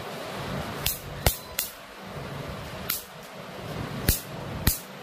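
Electric mosquito racket discharging across a screwdriver tip laid on its mesh: about six sharp, irregular spark snaps. The snaps show that the racket's grid is charged and working after a battery replacement.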